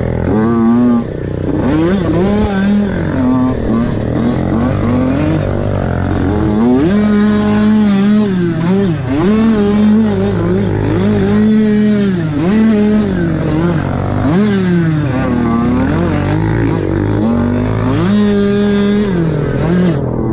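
Pit bike engine under hard riding, revving up and easing off again and again, its pitch climbing and dropping every one to two seconds.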